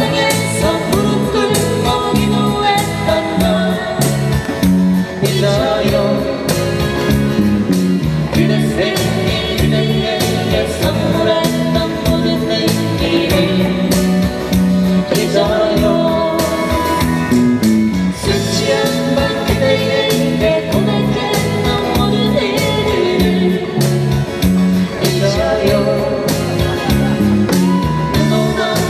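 Live acoustic band music with singing: strummed acoustic guitars, an electric guitar and a hand-played djembe drum keeping a steady beat, amplified through small PA speakers.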